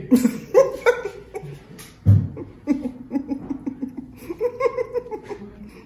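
Laughter: short repeated bursts of chuckling, with one louder low burst about two seconds in.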